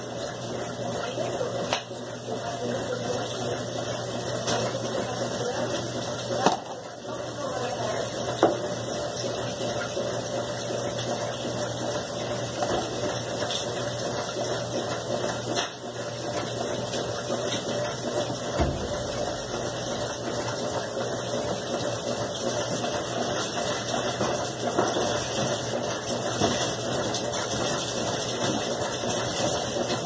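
Electrolux LT15F top-load washing machine agitating a full tub of clothes in water: the steady hum of the machine with the water churning, and a couple of sharp knocks about six and eight seconds in.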